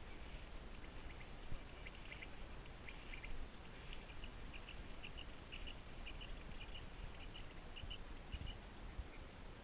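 Faint, rapid chirping of field insects in short repeated clusters, over a low wind rumble on the microphone.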